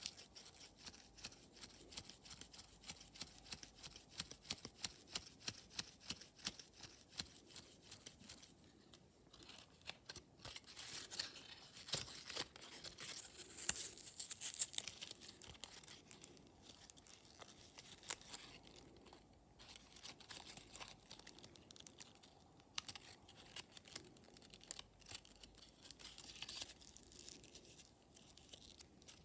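White paper origami flasher (a 24x24 flasher supreme) crinkling and crackling as it is twisted and squeezed shut between the hands, its many creases giving quick small clicks. The crackling is densest and loudest around halfway through.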